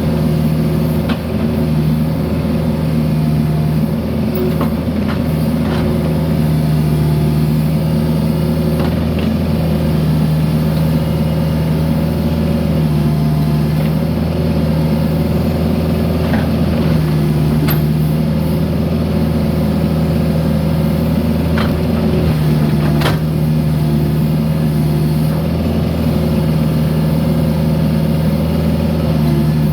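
Mini excavator's diesel engine running steadily under the hydraulics, its tone sagging and recovering every few seconds as load comes and goes. Occasional sharp knocks of the bucket working concrete sound through it.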